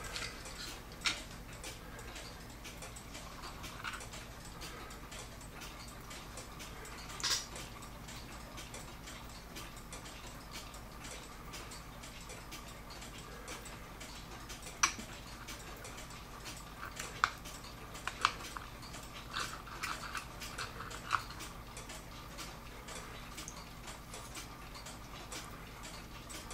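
A clock ticking steadily and quietly, with occasional sharper clicks and small metallic knocks as brass gears and arbors are handled and lifted out of a wooden-plated clock movement; the clicks cluster about two thirds of the way through.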